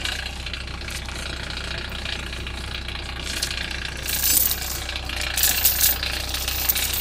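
Steel logging chain rattling and clinking in several short spells as it is pulled and wrapped around a log, over a steady low hum.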